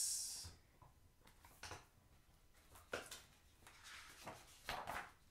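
The tail of a long voiced 'ssss' hiss imitating a snake, fading out within the first half second. Then a quiet room with a few faint rustles and taps as the picture book's pages are handled.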